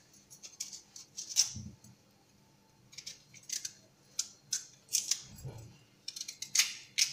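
Knife slicing through a raw, peeled sweet potato held in the hand: a series of short, crisp cuts at an uneven pace, with a dull thud or two as rounds drop into a glass bowl.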